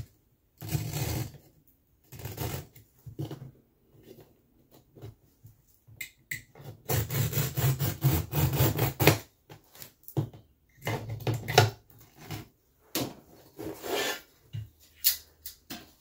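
Utility knife blade drawn along a metal straight edge, slicing through the woven backing of a carpet in a series of scratchy, ripping cuts, the longest and loudest run about halfway through.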